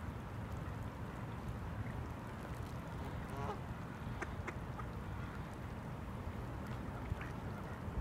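A mallard quacks once, a short call about three and a half seconds in, over a steady low background rumble.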